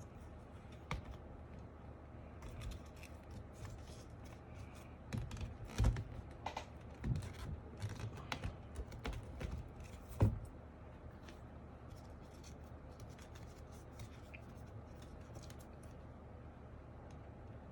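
Hand work on a mechanical keyboard during a foam mod: scattered clicks, scrapes and rustles of parts and foam being handled, busiest in the first ten seconds or so, then dying down.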